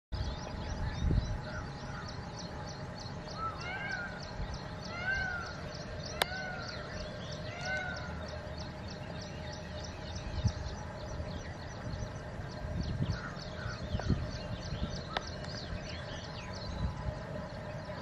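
Birds calling: a steady series of short, high chips, several a second, with a few arched, lower calls between about three and eight seconds in. A low wind rumble runs underneath.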